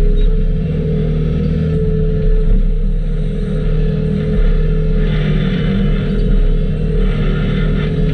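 Skid steer engine running steadily under load, with two short spells of harsher, hissing noise added, about five and seven seconds in.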